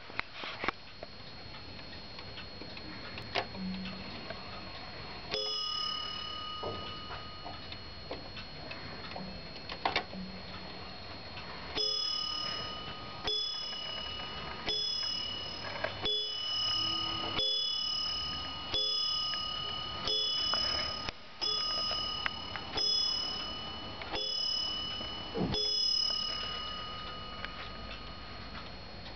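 Warmink Dutch weight-driven wall clock ticking, then striking: one ringing strike about five seconds in, and from about twelve seconds a run of about a dozen strikes, one every second and a half or so, each ringing on.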